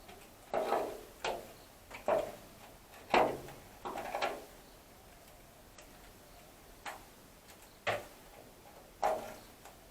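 Irregular sharp taps and knocks of a hand tool against the rusted sheet-metal body, each with a brief ring. About a dozen in all, bunched in the first four seconds, then single knocks near the end.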